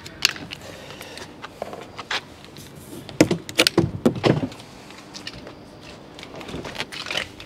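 Plastic unclip fasteners being worked out of a large cardboard ebike shipping box: a scatter of clicks and knocks, bunched together about three to four and a half seconds in.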